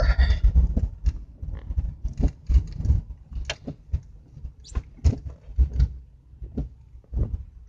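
Cab noise of a 2004 Chevrolet Silverado pickup rolling slowly: a low engine and road rumble, broken by irregular clicks and knocks at uneven intervals.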